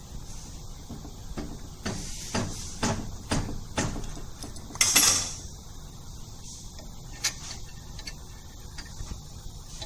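Metal clicks and scraping as an ultrasonic welding horn is screwed by hand onto the machine's booster, with a run of short clicks and one louder scrape about five seconds in.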